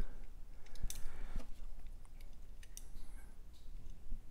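Light handling noise from steel digital calipers and a metal motor end plate: a few small, sharp clicks and a brief faint scrape as the caliper jaws are slid and set on the part.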